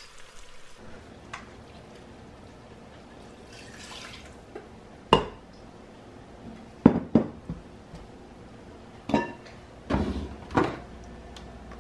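Kitchenware clattering: about half a dozen sharp knocks and clinks of a glass mixing bowl and an electric pressure cooker's pot handled on a counter, spread over the second half, over a faint steady hiss.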